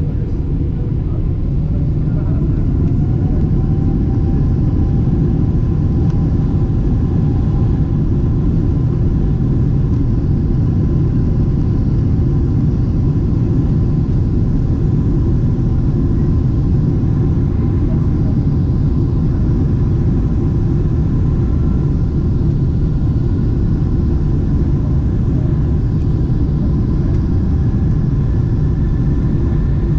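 Boeing 777-200ER's GE90 turbofan engines at takeoff power, heard inside the cabin as a loud, steady, deep rumble of the takeoff roll. A faint whine rises in pitch over the first few seconds as the engines spool up.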